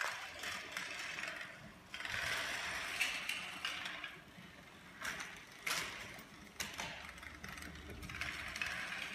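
Playing cards set up as a domino chain toppling one after another: a fast, dense clicking patter that swells and fades in waves as each run of cards goes down.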